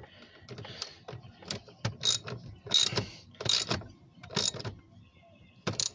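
Socket ratchet clicking in about six short bursts, one every half second or so, as the back-swings of a hand ratchet drive a 10 mm mounting bolt home.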